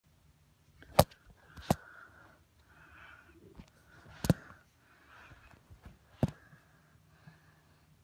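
Four sharp knocks and bumps from the camera being handled or jostled, with soft hissy rustling between them. A faint steady low hum runs underneath.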